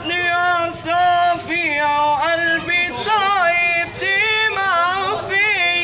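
A man singing an Arabic melismatic vocal line, holding long notes that waver and bend in pitch, with short breaks between phrases.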